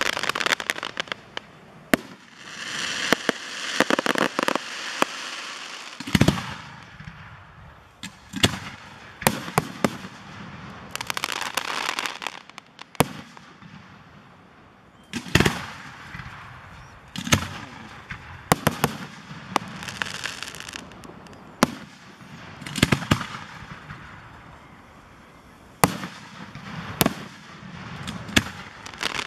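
Aerial firework shells bursting in a display: a string of sharp bangs at irregular intervals, several followed by a few seconds of dense crackling as the stars burn out.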